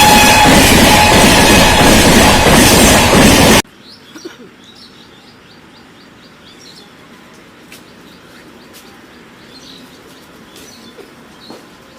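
A train passing close at speed: a loud, steady rush of wheels on rail, with a horn note dying away in the first second. It cuts off abruptly about three and a half seconds in, leaving a quiet background with birds chirping repeatedly.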